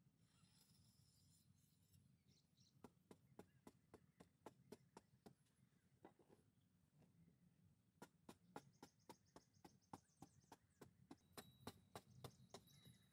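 Faint, quick knocks of a hand digging tool chipping at hard-packed earth, about four strokes a second, in two runs: one from about three to five seconds in, the other from about eight seconds in to near the end.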